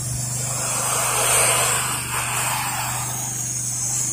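Pressure washer running steadily with a low hum, while a water stream hisses against vinyl siding, the spray noise swelling about a second in and easing off after two seconds.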